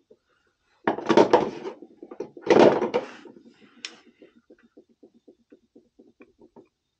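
Hands and a small hand tool working on an oil burner's nozzle and electrode assembly. Two loud scraping, rustling bursts, then a run of light, evenly spaced ticks, about five a second.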